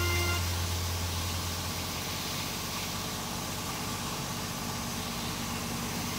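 Hammer-mill wood crusher running: a steady, even machine noise with no clear rhythm, and a low hum that fades over the first two seconds.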